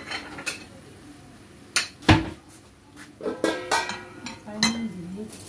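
Ceramic plate and metal pan lid being handled at the stove: several sharp clinks and knocks, with a loud knock about two seconds in and a cluster of ringing clinks about a second later. A brief murmur of a voice follows near the end.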